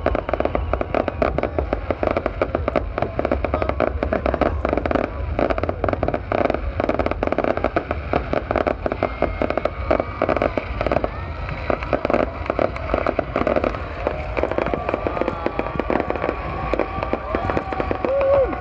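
A fireworks display, a dense, rapid crackle of pops and bangs that runs on without a break.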